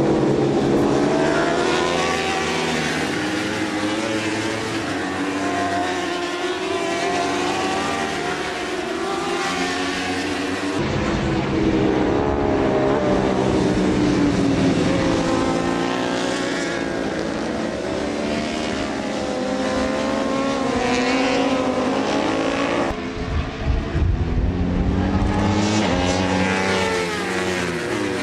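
Racing motorcycle engines at high revs, the pitch rising and falling as the bikes accelerate and shift through the gears. The sound changes abruptly twice, about 11 and 23 seconds in.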